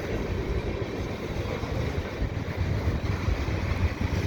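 Wind buffeting the microphone in gusts, over the low rumble of a passing double-stack freight train.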